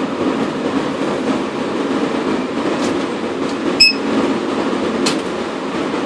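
Steady low mechanical rumble, with a short electronic beep and click a little before four seconds in and a faint click about a second later.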